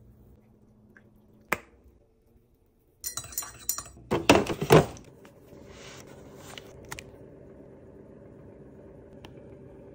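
Bottles and jars on a refrigerator door shelf clink and knock together as a bottle is pulled out, a cluster of sharp knocks about three to five seconds in. After that comes a faint steady hum with a couple of light taps.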